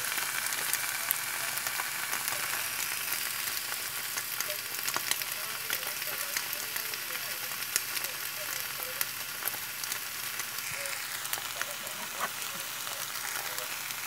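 Tofu cubes, scrambled egg and perilla leaves sizzling steadily in an oiled frying pan, with scattered small pops and crackles.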